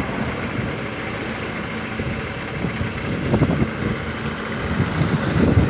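Motor vehicle engine running steadily with road noise, swelling a little louder a few times.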